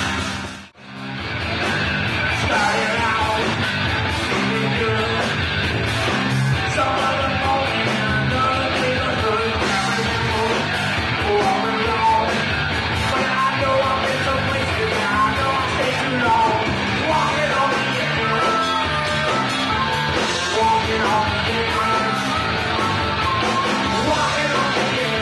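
Live rock band playing, with electric guitar, bass guitar and drums under two singers on hand-held microphones. The sound drops out briefly just under a second in, then the song carries on.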